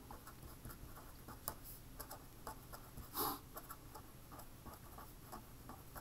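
A pen writing on a sheet of paper: faint, short scratchy strokes as words are written, with one short, louder swish about three seconds in.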